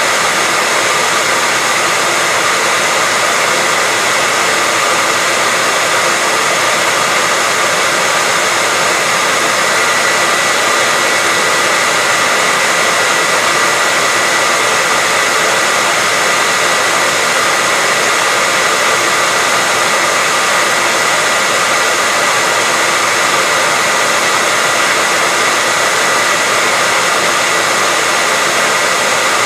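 Hair dryer running continuously: a steady rushing noise with a constant high whine near 2 kHz, used as white noise for baby sleep.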